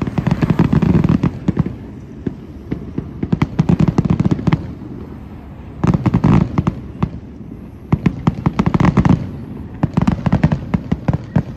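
Aerial fireworks display going off in rapid volleys: dense crackling pops and booms come in about five bursts, each a second or so long, with short lulls between.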